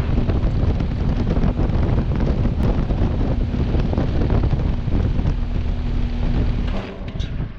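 Carrier Comfort 14 heat pump outdoor unit running in cool mode, its fan blowing air across the microphone over a steady hum. Near the end the sound drops sharply as the unit shuts down.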